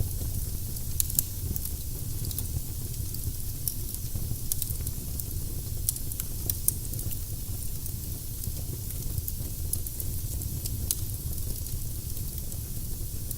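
Firewood burning in a fireplace: a steady low rumble of flame with a hiss and scattered sharp crackles and pops, a few of them louder, near one, six and eleven seconds in.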